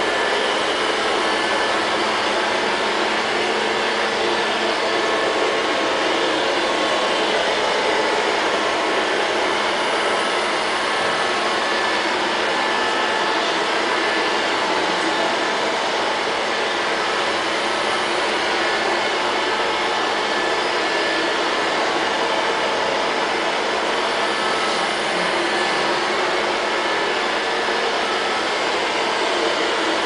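Liectroux LL-302 robot vacuum cleaner running across a tiled floor: a steady whirring hum with a few faint steady tones, unchanging in level throughout.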